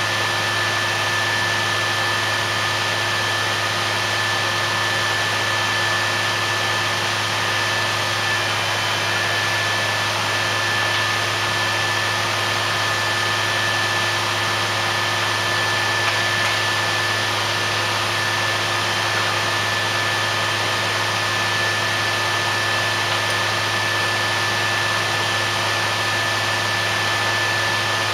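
Well-drilling rig running steadily as it drills the bore: a continuous, even machine drone with a steady high whine on top.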